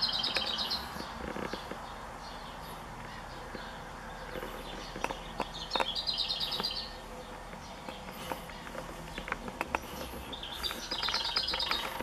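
A songbird singing a short, high phrase of rapid notes three times, about every five seconds, with scattered faint clicks in between.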